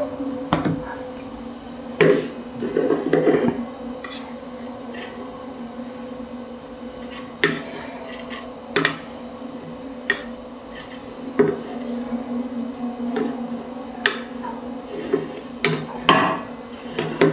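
Metal knocks and clinks of a steel strainer against a steel cooking pot as parboiled rice is tipped in over the chicken layer of a biryani. There are about half a dozen sharp knocks, a few seconds apart, over a steady low hum.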